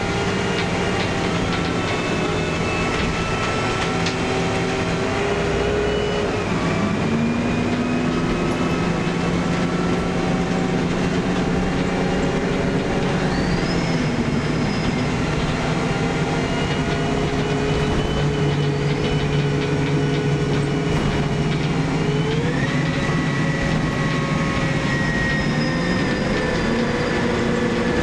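Karosa B961E articulated city bus in motion, heard from inside the passenger cabin: its engine and drivetrain run steadily under a rumble of road noise. Several whining tones drift in pitch and step up a few times as the bus changes speed.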